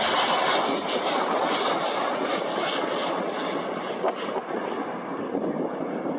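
Jet engines of a landing Boeing 787 Dreamliner airliner: a steady rushing noise as it passes low on final approach and touches down, slowly fading.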